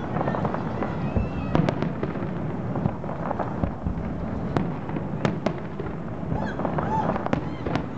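Fireworks display: aerial shells bursting over a continuous rumble, with sharp bangs and cracks scattered through.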